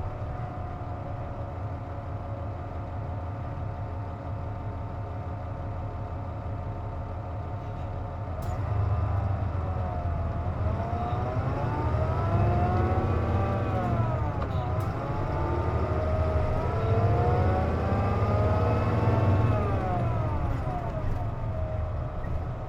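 Isuzu Journey-K (KC-JP250NTN) bus heard from inside the cabin, with the air conditioning running, which the uploader gives as the cause of its unusual noise. The engine runs steadily at first. About nine seconds in, the bus pulls away, its engine pitch rising and dropping twice as it changes up through the gears.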